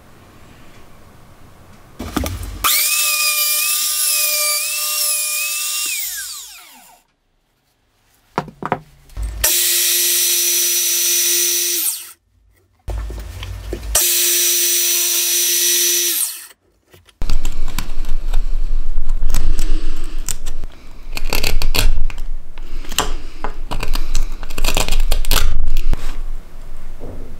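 Woodworking power tools: an electric motor runs steadily and spins down, then a sliding miter saw's motor runs twice, once stopping abruptly and once winding down. The last ten seconds are loud and uneven, with many sharp knocks, as the wood is being cut.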